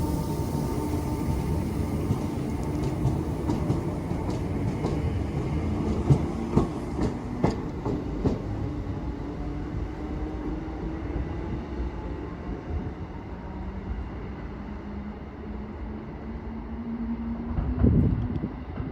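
A train running along the track, wheels clicking over rail joints several times a few seconds in, its sound slowly fading as it draws away. A loud thump comes just before the end.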